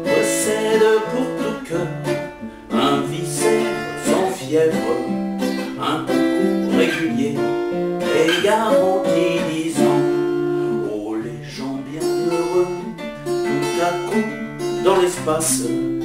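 A man singing in French to his own acoustic guitar accompaniment, the guitar plucked in a steady chordal pattern under the vocal line.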